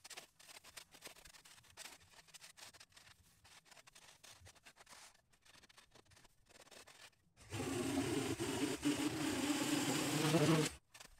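Faint rustling and crackling for about seven seconds, then a two-stroke Maruyama string trimmer running at full throttle, cutting dry overgrown grass for about three seconds before cutting off suddenly.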